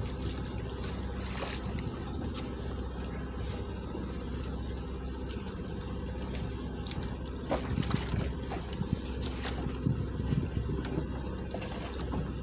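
Steady hum of an engine aboard a small fishing boat. Scattered sharp clicks and knocks come in during the second half.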